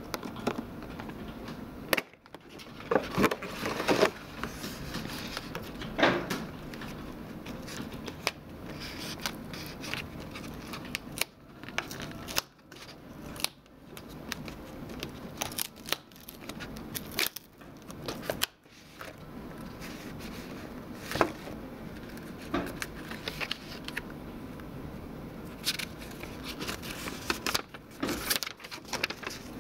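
Hands opening a clear plastic retail box and handling the cardboard insert and paper quick-start guide inside it. The sound is a run of sharp plastic clicks and crackles with rustling card and paper.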